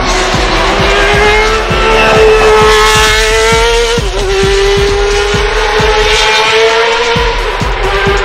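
Ferrari 333 SP's V12 engine heard onboard, pulling hard at high revs: its note climbs steadily, drops at an upshift about four seconds in, climbs again and drops at another upshift near the end.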